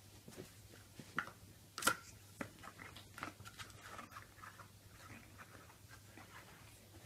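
Faint scattered taps, scrapes and chewing noises of a pug puppy playing with and gnawing a cardboard tube on carpet, with sharper knocks about one and two seconds in.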